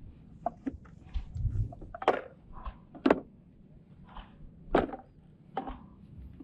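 Irregular hollow knocks of bamboo poles on a lashed bamboo fishing platform, a few sharp ones about two, three and five seconds in, over a low background rumble.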